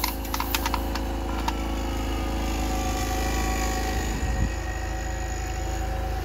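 Electric refrigeration vacuum pump, fed by a portable generator, running steadily as it pulls a vacuum on a truck's AC system for a leak test after an O-ring replacement. A few sharp clicks in the first second and a half.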